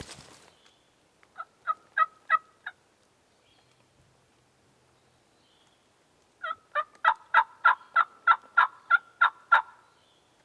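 Turkey yelps in two runs, about three notes a second: five notes, then after a pause of a few seconds a louder run of about a dozen.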